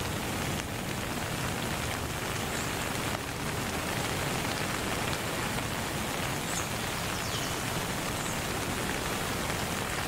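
Steady rain ambience, an even hiss, with a few brief high chirps scattered through it.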